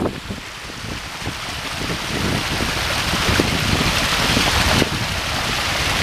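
Small waterfall splashing and rushing over rocks into a shallow stream, a steady hiss of water that swells over the first few seconds. Some low wind buffeting on the microphone underneath.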